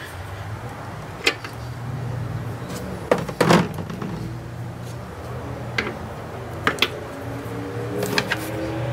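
Handling noises of a fuel pressure regulator being taken off and fitted to the fuel rail mount: a few light clicks and knocks, the loudest about three and a half seconds in, over a low steady hum.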